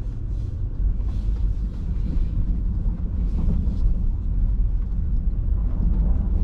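Honda Ridgeline pickup truck driving, a steady low rumble of tyres and engine.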